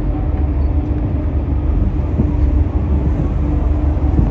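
Steady low rumble of a ship's engines under way, with a constant hum over it.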